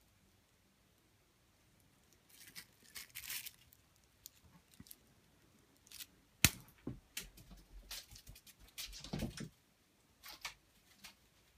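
Cat's crinkle ball crinkling in short bursts as it is batted and tossed in a game of fetch, with one sharp knock about six and a half seconds in.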